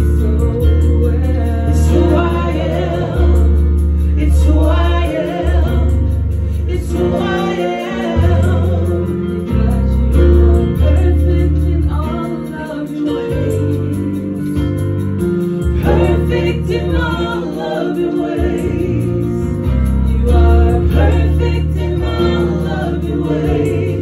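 Live gospel worship song: a woman singing lead into a microphone with backing singers, over a Yamaha Motif 8 keyboard playing chords and a deep bass line.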